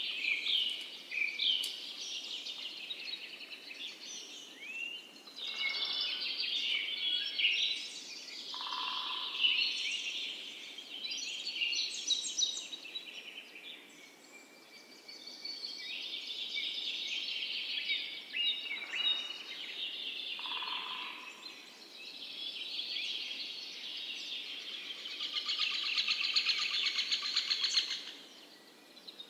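Several songbirds singing and calling in a busy chorus of high chirps and warbles. A rapid buzzy trill comes near the end.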